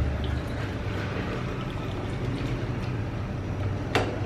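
Soup broth being ladled from a metal stock pot and poured over a bowl of noodles and vegetables, over a steady low hum. A single sharp metal clink near the end as the ladle knocks against the pot.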